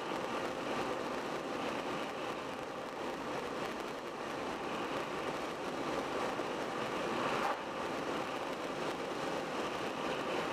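Steady tyre and wind noise of a car driving at road speed on a highway.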